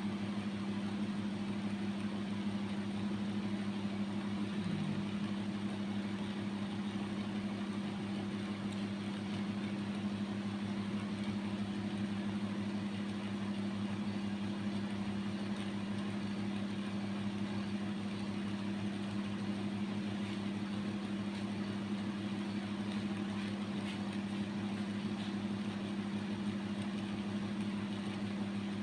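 A steady low hum, even and unbroken, over a faint hiss.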